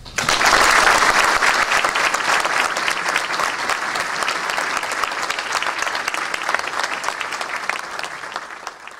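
A large audience applauding: many hands clapping at once. It starts abruptly right at the start and slowly dies away near the end.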